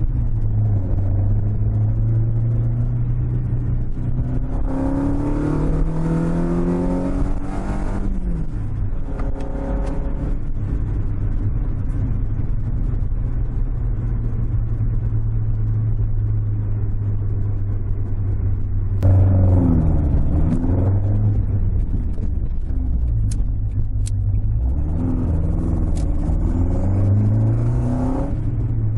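Toyota AE86's 4A-G four-cylinder engine heard from inside the cabin while driving. The revs rise and fall several times, with steady running in between. The owner found it trouble-free in every situation tried.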